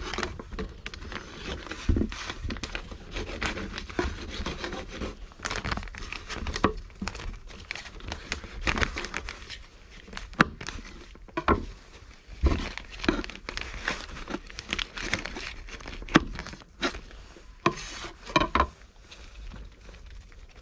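Irregular crackling, crinkling and clicking from a cat pressed right up against the microphone, with a few sharper clicks scattered through.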